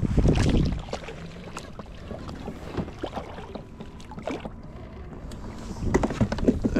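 Water sloshing around a kayak with wind on the microphone and scattered small knocks from the hull and gear. A louder low rumble comes right at the start.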